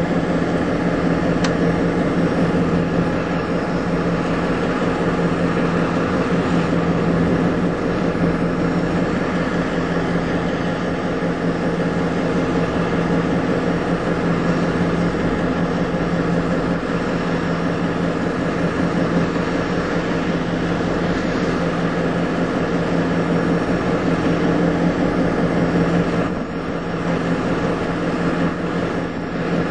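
EMD two-stroke diesel locomotives idling: a steady engine drone with an even, constant hum, dipping slightly in loudness for a moment about 26 seconds in.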